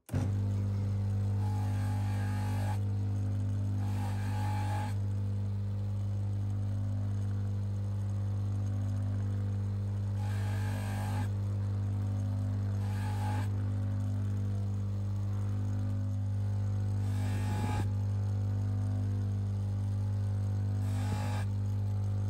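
Bench polishing motor running with a steady electric hum, its cloth buffing wheel spinning. Every few seconds a watch case is pressed against the wheel to buff the lugs, adding a short rushing rub over the hum.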